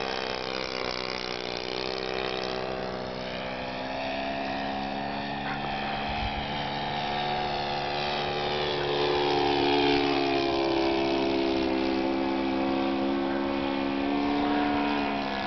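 Great Planes Slow Poke model airplane's ASP FS-80AR 13 cc four-stroke glow engine running steadily in flight. Its pitch slides gently up and down as the plane passes, and it is loudest about ten seconds in.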